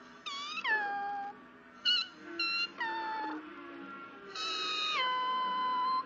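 German shepherd puppy whining: a run of about five high-pitched cries, most sliding down in pitch, the last a long held whine that drops a step partway through.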